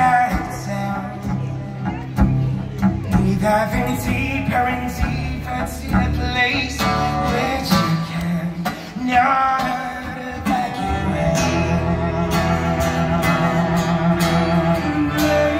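Live band music: a male singer over guitar, with sharp regular percussion hits keeping the beat.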